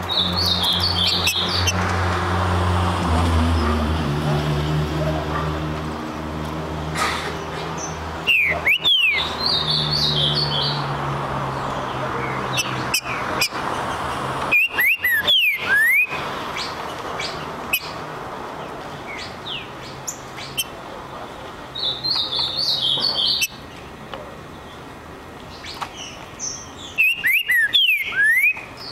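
Green-winged saltator (trinca-ferro) singing three loud bursts of quick whistled phrases, about 9, 15 and 27 seconds in, with shorter high chirps between them. A steady low hum runs under the first half.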